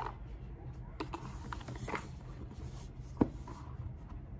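A cardboard gift box being handled and opened by hand: scattered rubs, slides and light taps of the card, with a sharper knock about three seconds in, over a steady low hum.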